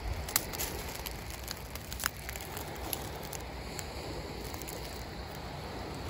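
Footsteps crunching over a thick bed of loose seashells, the shells clicking and crackling in scattered sharp ticks over a steady low rumble.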